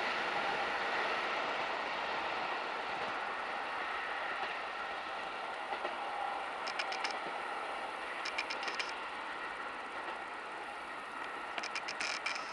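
Regional passenger train running on the line: a steady rumble and hiss that fades slowly, with three quick groups of wheel clicks over rail joints about 7, 8.5 and 12 seconds in.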